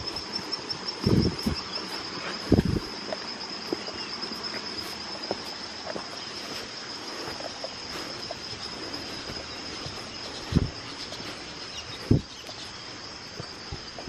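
Steady, high-pitched chorus of insects buzzing without a break, with the light clicks of footsteps on stones and dry leaves. A few low thumps stand out above it, mostly in the first three seconds and twice more near the end.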